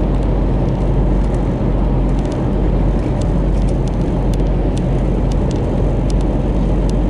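Steady road and engine noise inside a moving car's cabin, a low even rumble.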